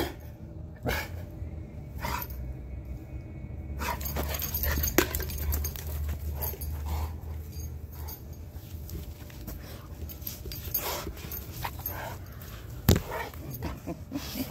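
A Cane Corso making play noises, a few short sharp sounds spaced seconds apart, with panting, over a steady low rumble.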